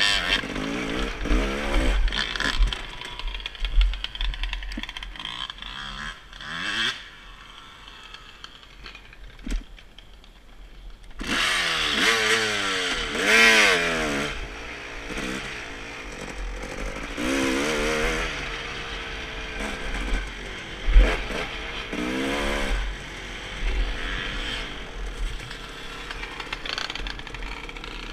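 Dirt bike engine revving up and down as it rides the trail, easing off to a quieter stretch about a third of the way in, then pulling hard again, with wind buffeting the microphone. A sharp thump stands out about three quarters of the way through.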